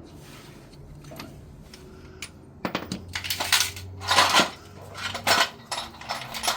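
Hard objects clinking and clattering against each other, starting a little under halfway through as an irregular run of sharp clinks, loudest about four seconds in.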